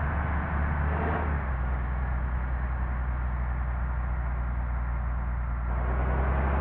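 Steady low rumble of a tour bus's engine running, with road noise.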